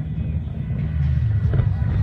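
Music with a heavy low rumble during a lull in the firework bursts; only a faint crackle comes about one and a half seconds in.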